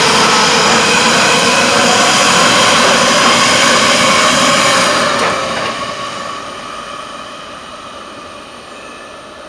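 Berlin S-Bahn Class 481 electric multiple unit departing, its traction motors whining in several steady tones over the noise of wheels on rail. It stays loud for about five seconds, then fades steadily as the train moves away.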